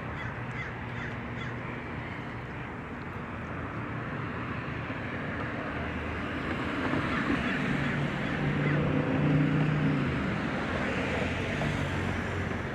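Outdoor street ambience: a steady wash of noise, with a low engine hum that swells about seven seconds in and fades again near ten seconds, as a vehicle passes.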